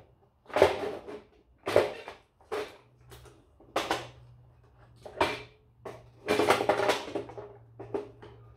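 Plastic photocopier parts being handled and pried apart, making a series of sharp clacks and knocks about once a second, with a longer stretch of rattling clatter about six seconds in.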